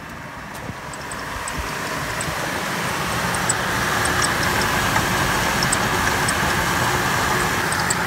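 A 2003 Chevrolet Trailblazer's 4.2-litre inline six-cylinder engine idling with a steady squeak from the water pump pulley, growing louder as the microphone comes up to the engine bay. The squeak is the sign of a worn bearing in the water pump pulley that carries the clutch fan.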